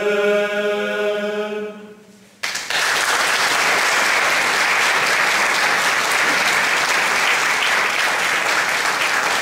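Men's a cappella singing group holds the final chord of a song, fading out about two seconds in. After a brief pause, the audience breaks into steady applause.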